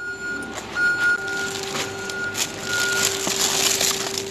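A high electronic beep sounding on and off several times over a steady hum from nearby machinery, then plastic bags rustling near the end as the dumpster is rummaged.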